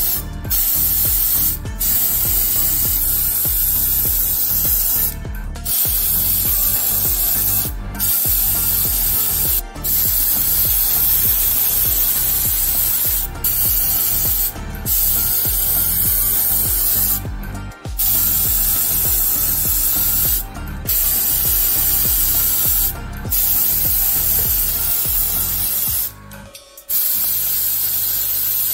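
Paint spraying: a loud, steady hiss of spray broken about ten times by short pauses where the spray is released and pressed again.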